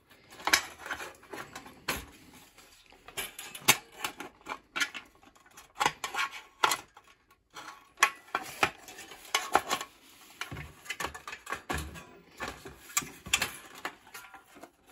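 Irregular clinks, clicks and knocks of a metal toaster body and its internal wiring being handled and turned over on a workbench while a wire is fitted to a terminal.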